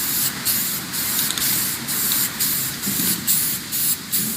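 Paint spraying in a paint booth: a loud hiss that stops and restarts in short bursts as the spray is triggered on and off many times.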